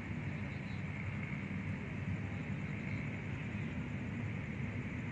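Steady low rumble of outdoor background noise, with no distinct sounds standing out.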